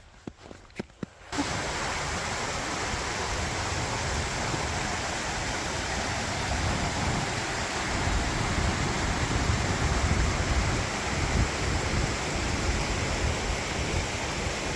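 Snowmelt water rushing steadily, a loud even roar with a rumbling low end that swells and falls, starting suddenly about a second in.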